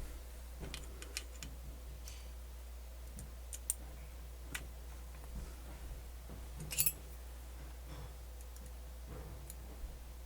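Scattered small clicks and taps of parts being handled and fitted in a cassette deck's tape mechanism, with a louder short clatter about seven seconds in, over a steady low hum.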